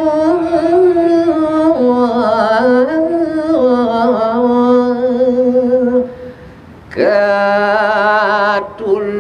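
Unaccompanied male voice singing a line of Balinese geguritan (tembang) in long, drawn-out notes with wavering ornaments. After a brief pause about six seconds in, a second, lower male voice takes up the line with strong vibrato.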